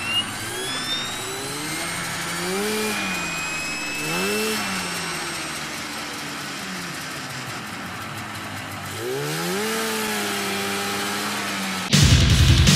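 An engine revved in three throttle blips, each rising and falling in pitch. The last one is held longer before it eases off. Loud music cuts in near the end.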